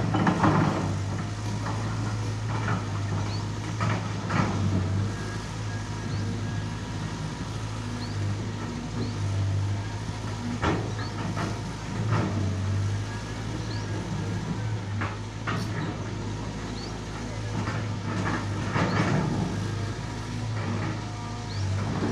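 Excavator's diesel engine running steadily under load, with intermittent metallic clanks and knocks as it digs and loads soil into a dump truck.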